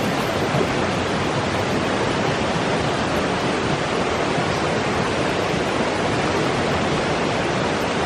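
Fast, shallow mountain river rushing over a rocky riffle close to the microphone: a steady, even rush of water.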